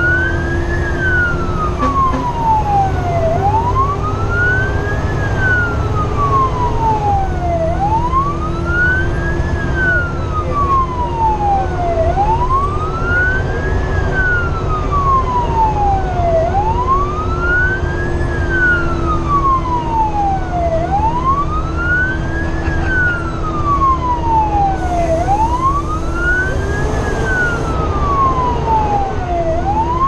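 Fire truck's siren on a wail cycle, rising quickly and then falling slowly, repeating about every four seconds, heard from inside the cab. Under it is the steady low rumble of the truck's engine and road noise.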